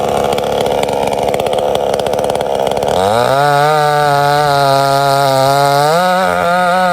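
Sungel 58 cc two-stroke chainsaw running at high throttle while cutting timber. About three seconds in, the rough, labouring sound gives way to a steadier, clearer engine pitch that wavers slightly near the end.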